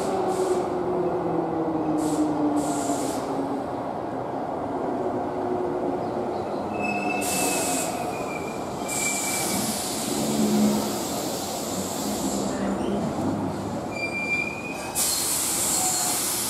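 Keihan 2400 series commuter train pulling into an underground platform and braking to a stop: its motor whine falls in pitch early on as it slows, and high squeals from the wheels and brakes come and go several times until it halts.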